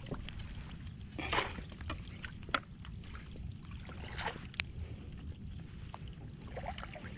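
Water splashing and sloshing in short bursts as a hooked largemouth bass is fought up to the side of a kayak, the sharpest splashes about one and two and a half seconds in.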